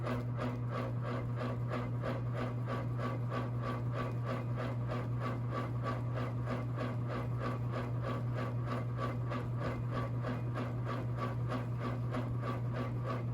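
Hunter Original ceiling fan with a shaded-pole motor running, giving a steady low hum and an even rhythmic ticking about three to four times a second. The ticking is the vibration from a splitting cane blade.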